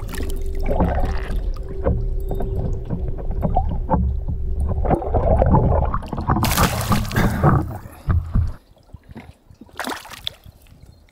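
Water sloshing and gurgling, heard through a camera held underwater beside a boat, with a steady hum through the first five seconds. About six and a half seconds in there is a loud splashing rush as the camera breaks the surface, and near the end a hooked smallmouth bass splashes at the surface beside the boat.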